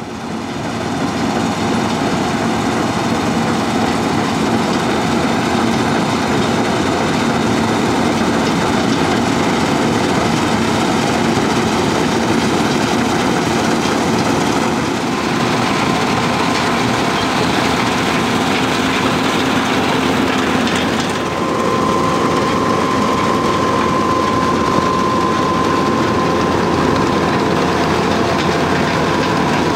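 New Holland TX67 combine harvester running while harvesting barley, the engine and the threshing and cutting machinery making a loud, steady mechanical din. It fades in at the start, and a steady high whine joins about halfway through.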